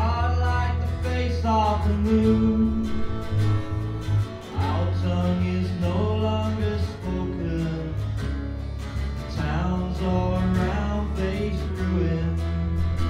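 Acoustic folk song: guitar accompanying a sung or fiddle melody, playing continuously.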